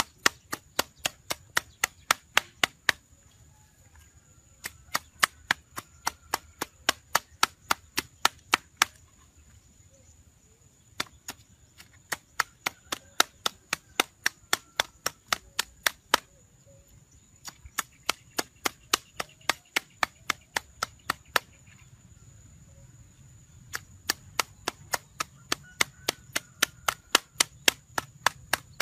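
Quick, evenly paced chopping with a blade on wood, about three to four strikes a second, in runs of a few seconds separated by short pauses.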